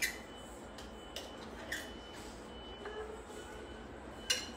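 A few light clicks of a fork against a bowl while eating, the loudest a little before the end.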